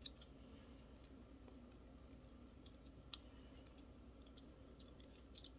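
Near silence: room tone with a few faint clicks of small plastic toy parts being handled and pressed together, one slightly sharper about halfway through.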